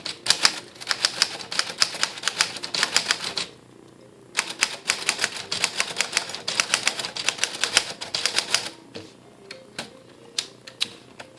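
1937 Corona Standard portable typewriter being typed on in capitals with the shift lock engaged: fast runs of sharp keystrokes as the typebars strike the platen. There is a short pause about three and a half seconds in, then a second fast run, then slower, scattered single strikes near the end.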